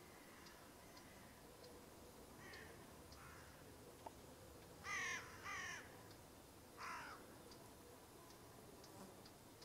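Distant crows cawing: about five short harsh calls, the loudest two close together about five seconds in, over near-quiet outdoor background with faint high ticks.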